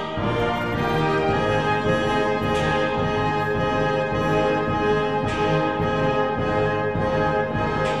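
Orchestral background music with brass, playing long held notes and chords.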